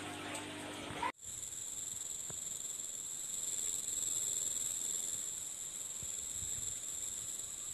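Steady, high-pitched chorus of insects that starts abruptly about a second in, replacing a low hum that cuts off.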